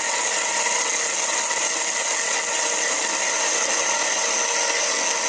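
Low-powered electric saw running steadily as its fine blade slowly cuts through steel: a constant high hiss with a faint hum underneath.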